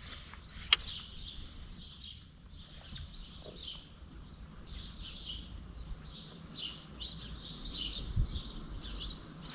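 Birds chirping over and over in short calls, with one sharp click a little under a second in.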